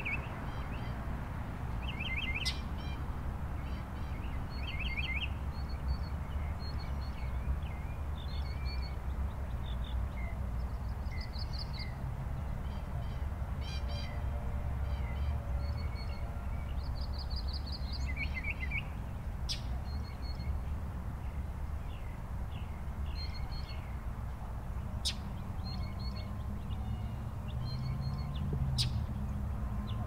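Northern mockingbird calling several times in quick runs of short notes, among the chirps and song of other birds, over a steady low rumble.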